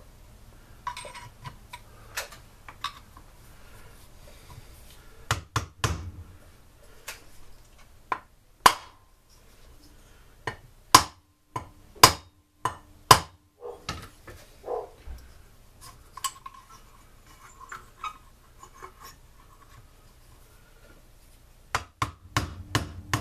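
Hammer blows on a part rusted fast in a Stihl SR 420 blower engine, struck to knock it loose: sharp metal strikes in groups, three about a second apart near the middle and a quick run of several near the end, with small clinks of parts being handled between.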